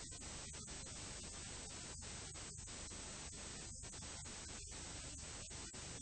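Steady static hiss of a blank recording with no programme sound, broken by many brief dropouts.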